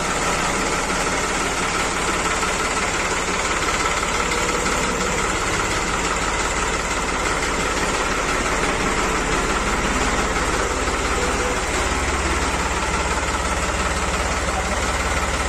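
New Holland 3630 tractor's diesel engine idling steadily.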